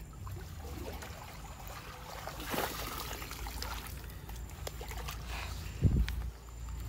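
Water splashing and trickling as a fine-mesh hand net is swept through shallow, muddy stream water and lifted out, with a dull thump near the end.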